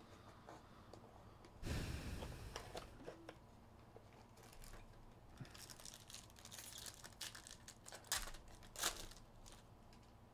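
Foil trading-card pack being torn open and its wrapper crinkled, in short crackly bursts. There is a louder rustle of handling about two seconds in.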